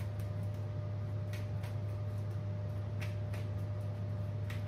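Tarot deck being shuffled by hand: soft, irregular card flicks and taps, about two a second, over a steady low hum.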